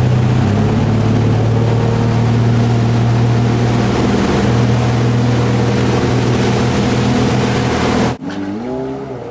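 Motorboat engine running steadily at speed while towing an inflatable tube, under a loud rush of water and wind. Near the end the sound cuts abruptly to a jet ski engine whose pitch climbs and then levels off as it accelerates.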